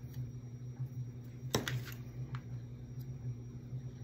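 Hands handling craft materials and a pair of steel needle-nose pliers on a plastic mat: one sharp clack about one and a half seconds in, then a couple of light ticks, over a steady low hum.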